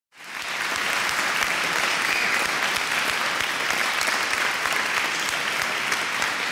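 Audience applauding: dense, steady clapping that comes in abruptly just after the start.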